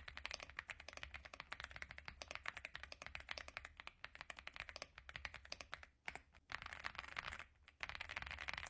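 Stock Aula F75 mechanical keyboard being typed on fast: a quick, continuous run of clacking keystrokes, with brief pauses about six and seven and a half seconds in. This is the sound the video presents as creamy.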